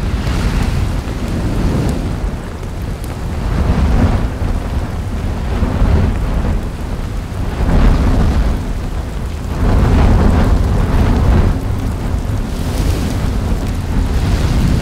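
Lava fountaining and splashing in an erupting volcanic vent: a loud, deep rumble that swells every two seconds or so with a rushing, spattering surge.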